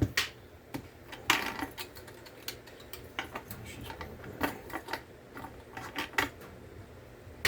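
Wood stove snapping and cracking: irregular sharp pops and clicks from the burning wood.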